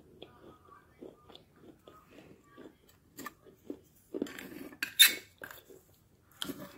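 Soft, regular chewing of clay, about three chews a second. About four seconds in it gives way to a plastic spoon scraping and clinking on a plate as it scoops clay powder, loudest about five seconds in and again near the end.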